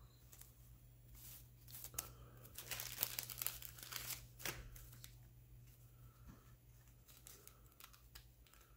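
Plastic wrapper of a trading-card pack torn open and crinkled: a run of crackling from about a second in, loudest around three seconds, dying away by five seconds into lighter handling.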